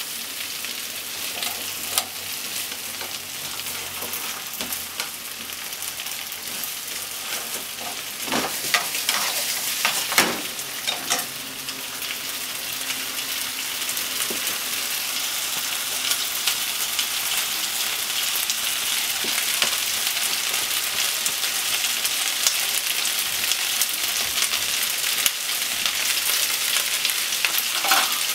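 Potato sticks and bacon sizzling steadily as they fry in a non-stick frying pan. Chopsticks stir and knock against the pan now and then, most of all in a run of clicks about eight to eleven seconds in, then the sizzle carries on alone and grows a little louder.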